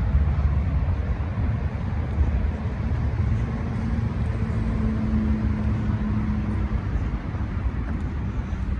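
Steady low rumble of motor traffic, with a faint engine hum rising out of it through the middle.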